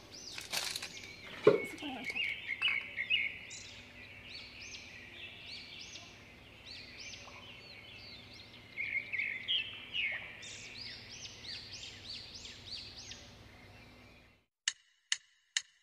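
Small birds chirping, many short repeated calls in quick runs, over a faint steady hum. Clicks and rustles of handling come in the first two seconds. Near the end the sound stops abruptly, leaving a few sharp ticks.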